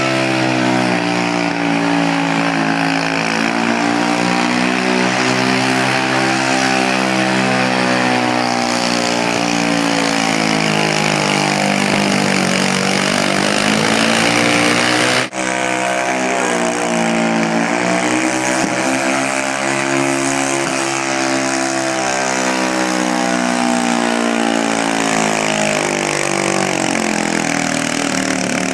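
1050 Super Stock garden tractor engines running hard at high revs while pulling a weight-transfer sled, two pulls joined by a sudden cut about halfway through. In each, the engine's pitch sags and then partly recovers as the sled's load bogs it down.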